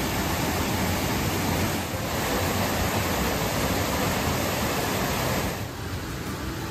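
Small jungle waterfall: water rushing in a steady, loud hiss. It falls to a quieter, thinner hiss near the end.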